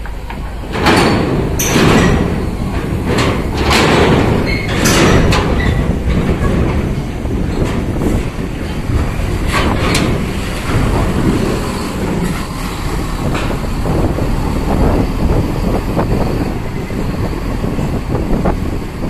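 Heavy intercity buses moving on a ferry pier: a steady heavy-vehicle rumble, broken by a string of loud knocks in the first five seconds or so and another about ten seconds in.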